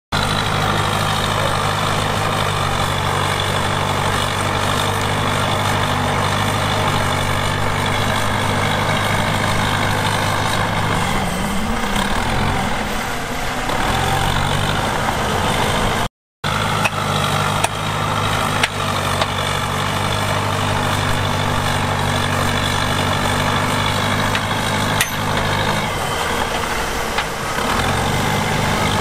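Heavy diesel engine of earth-moving machinery running steadily, its note wavering and dipping for a few seconds around the middle and again near the end. The sound cuts out for a split second just after halfway.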